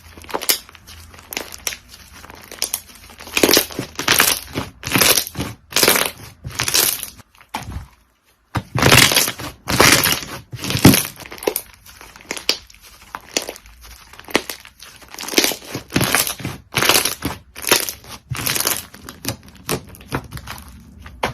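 Slime being squeezed and pressed by hand, giving off quick, irregular runs of crackling, crunchy pops, with a brief break about eight seconds in.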